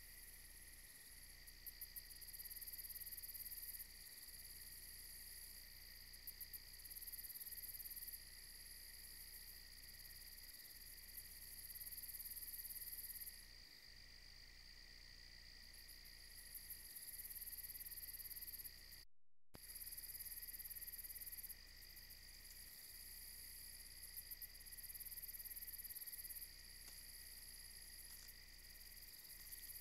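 Insects trilling faintly: a steady high chorus, with a higher buzzing call that switches on and off every two seconds or so. The sound cuts out for a moment about two-thirds of the way in.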